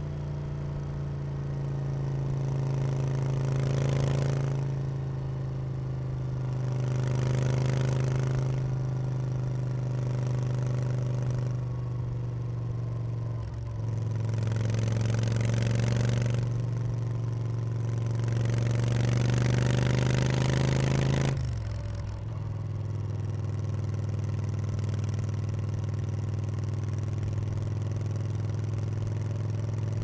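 Yamaha BT1100 Bulldog's air-cooled V-twin engine pulling the bike along at road speed, its steady note swelling and easing every few seconds with the throttle. About two-thirds of the way through, the note drops suddenly and then runs on steady at a lower pitch, as when the rider changes gear or rolls off the throttle.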